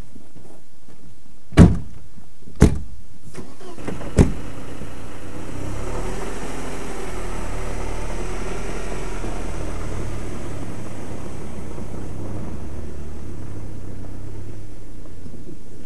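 A car door slams shut, followed by two lighter knocks; then a Mercedes-Benz 190 saloon's engine starts and runs steadily as the car drives off.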